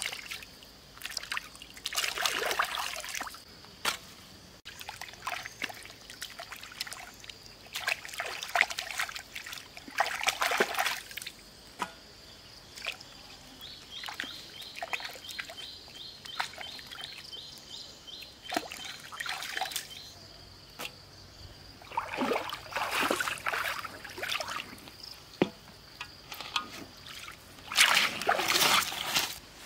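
Shallow stream water splashing and sloshing as vegetables are washed by hand in it, in repeated bursts of a second or two with quieter drips and splashes between.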